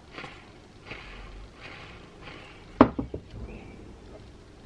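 Hands handling the chainsaw's body and small parts at the output shaft, with soft rustling. One sharp click comes a little before three seconds in, followed by a few lighter clicks.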